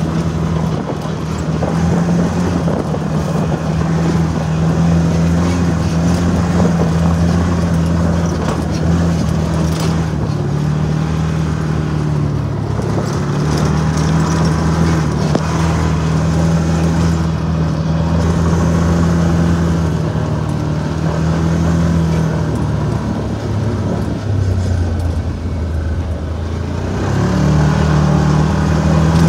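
Can-Am Maverick Sport 1000R side-by-side's V-twin engine running at a steady drone as the vehicle is driven along a dirt trail, heard from inside the open cab with rough ride and wind noise. The engine pitch dips about three quarters of the way through and climbs again near the end.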